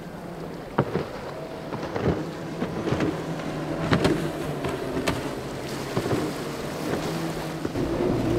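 Single Yamaha outboard on a flats skiff running at speed, a steady drone. The hull slaps the chop about once a second, over wind rumble on the microphone.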